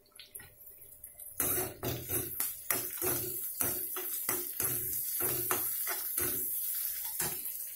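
Onions and green chillies frying in hot oil in a kadai: a loud sizzle breaks out about a second and a half in as ginger-garlic paste goes into the pan, with a metal spoon scraping and knocking against the pan in quick strokes, about three a second.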